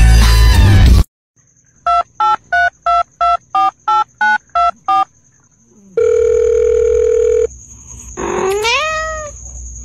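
Music cuts off about a second in. Then come nine quick telephone keypad beeps at varying pitches, about three a second, and a steady phone tone for about a second and a half. It ends with one cat meow that rises and then falls.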